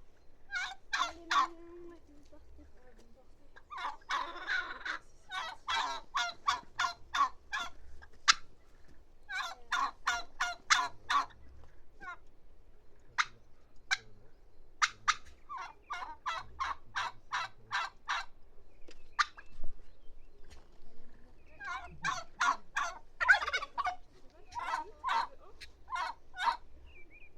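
Turkeys gobbling: one rapid, rattling gobble after another, with short pauses between them.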